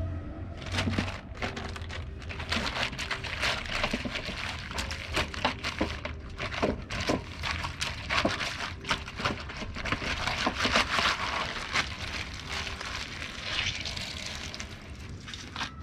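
Wet cloth being rubbed and squeezed in a metal basin of water: irregular sloshing and splashing, with water streaming back into the basin as the cloth is wrung out near the end.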